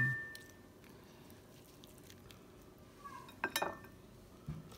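Carving knife and fork clinking against a metal baking sheet and a plate while a glazed spiral ham is sliced. A clink's ring fades away at the start, then after a quiet stretch come a few light clinks and scrapes about three and a half seconds in.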